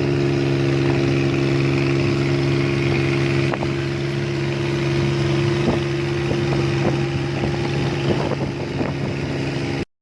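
Fishing boat's engine running steadily at a constant pitch, with one sharp click about a third of the way in. The sound cuts off abruptly just before the end.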